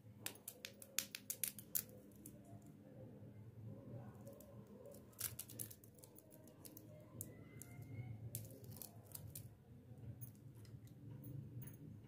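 Plastic lollipop wrappers crinkling and crackling as fingers handle the lollipops, in a few short spells of sharp crackles: at the start, about five seconds in, and again near nine seconds.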